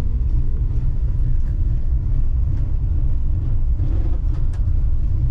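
Passenger train running along the track, heard from inside the carriage as a steady low rumble with a few faint ticks.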